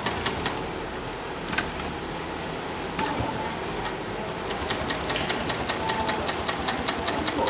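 Sailmaster 366-76-12 industrial zig-zag sailmaking sewing machine stitching with a fast, even clatter of stitches. It stops about half a second in, leaving a few single clicks, and starts stitching again about four and a half seconds in.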